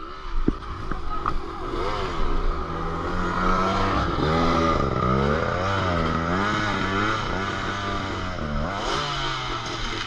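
Enduro motorcycle engines: one runs at a steady low idle while another is revved up and down over and over, its pitch rising and falling, as the rider works it up a steep dirt slope.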